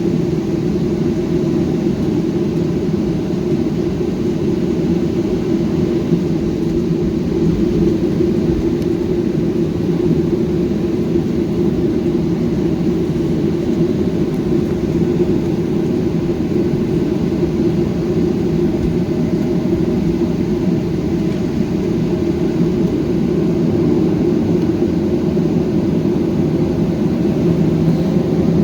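Jet airliner's engines and airframe heard from inside the cabin: a steady rumble and whir, growing slightly louder near the end.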